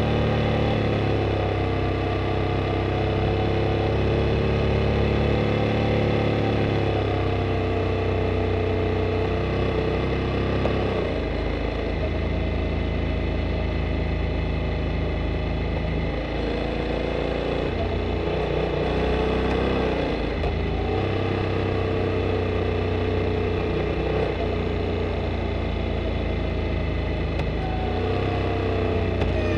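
Honda Integra NC750D's 745 cc parallel-twin engine running on a mountain-pass descent, picked up from under the seat. Its pitch holds steady, sags, and steps up and down several times as the revs change.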